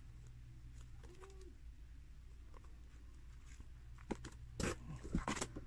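Paperback manga volumes handled in a cardboard box, their paper pages flipped, giving a handful of short rustles and taps from about four seconds in over a quiet, steady room hum.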